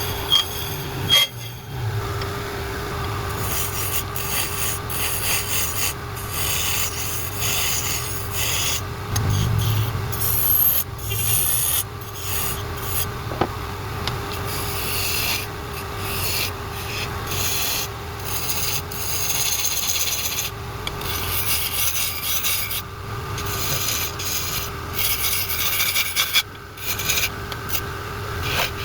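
Wood lathe running with a steady motor hum while a tool scrapes against the spinning wooden workpiece, a rasping hiss that comes in long strokes with brief breaks.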